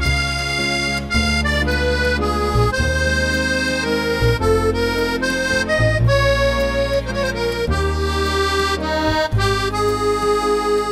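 Instrumental background music: a melody of held notes changing every half second or so over long sustained bass notes.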